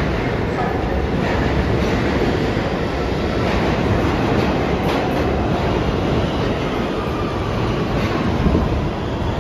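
A New York City Subway R160 train pulling into an underground station and rolling alongside the platform: a steady rumble of steel wheels on rail with rail-joint clicks, and a faint high wheel squeal near the end.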